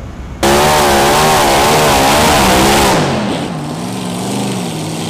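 Multi-engine modified pulling tractor running hard at high revs, its pitch wavering rapidly up and down. About three seconds in the level drops and the engines fall to a lower, uneven pitch.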